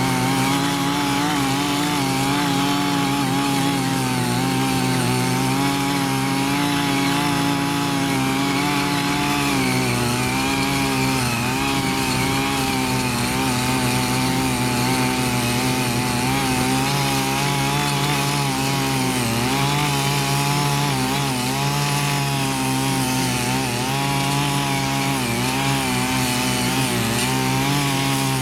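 Two small mini power tillers' engines running steadily as their rotary tines churn the soil, the engine pitch wavering slightly.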